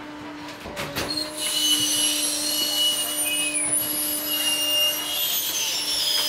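Rear-loader garbage truck's hydraulic packer running, a steady whine with a high hiss, after a knock about a second in.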